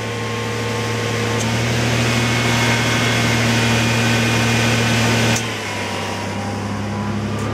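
Chevy Blazer engine held at about 1500 RPM, with its new AC compressor engaged and the electric cooling fans on high, giving a steady loud drone. About five and a half seconds in there is a click and the sound drops somewhat. The AC system is being charged with refrigerant, and the owner thinks it sounds too noisy, "like it's gonna blow up".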